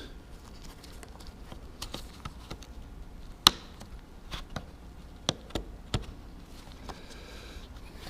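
Scattered light clicks and knocks of sunroof parts being handled and pushed into place by hand, the sharpest about three and a half seconds in.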